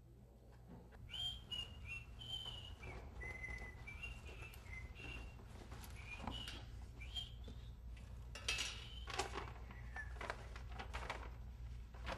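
A person whistling a tune, a run of short held notes that step up and down in pitch, followed near the end by a few sharp clicks and knocks.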